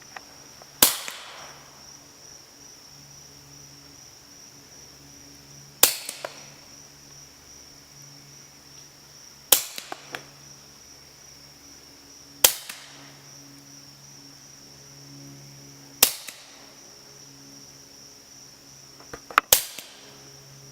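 Six suppressed shots from a Walther P22 .22 pistol fitted with a TBA Peacemaker suppressor, each a sharp crack with a few small clicks right after it, spaced three to five seconds apart; the last comes just after a couple of smaller clicks.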